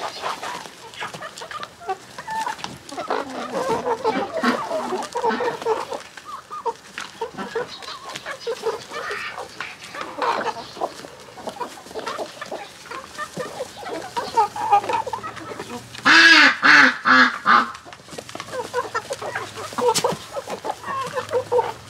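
A flock of chickens clucking while feeding together, with short calls throughout. About sixteen seconds in, a loud run of honking calls from the white waterfowl among them.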